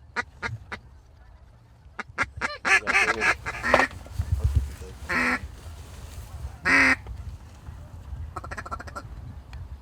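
Loud, mallard-style duck quacking. A quick string of short quacks opens it, a longer run of quacks follows about three seconds in, then two single loud quacks come near five and seven seconds in, with fainter quacks near the end.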